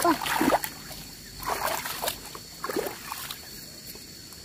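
Water sloshing and splashing in three short bursts about a second apart.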